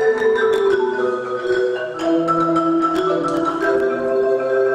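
Marimba quartet with vibraphone playing a rock arrangement in sustained, held chords that shift every second or so.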